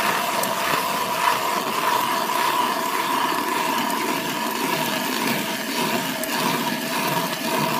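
Hand ice auger turning in an ice hole, its blades grinding steadily through ice and slush to widen the hole.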